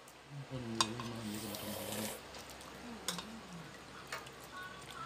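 Metal spoons clicking and scraping against plastic bowls at a meal, a few separate sharp clicks. A voice hums briefly, without words, from about half a second in until about two seconds.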